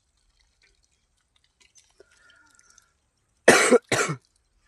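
A person coughing twice in quick succession near the end, two short loud coughs about half a second apart.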